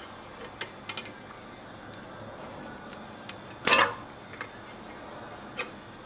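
Faint light metallic clicks, then one short, louder scrape a little past the middle, from a tool working the pad-retaining pins of a 1991 Mazda RX-7's front brake caliper.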